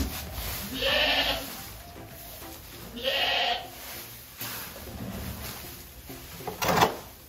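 Goat bleating twice, once about a second in and again about three seconds in, followed by a short sharp knock near the end, the loudest sound.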